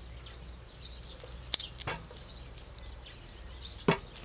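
Small birds chirping in the background while hands clean raw shrimp over a metal tray, with three sharp clicks: one about a second and a half in, another just after, and the loudest near the end.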